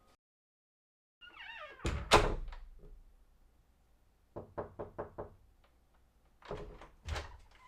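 A door creaks briefly, then bangs shut with two loud thuds about two seconds in. Five quick knocks follow, then two more heavy thuds near the end.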